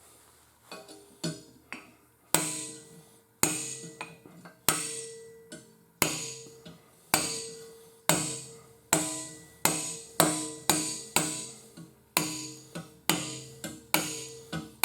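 Hammer blows on sheet steel, bending a flange over clamped angle iron: a few light taps, then steady ringing strikes about one a second that come faster near the end, each leaving a metallic ring.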